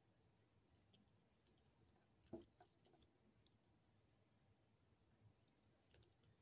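Near silence broken by a few faint small clicks, the loudest about two seconds in: needle-nose jewelry pliers working a metal jump ring on a chain of glass beads.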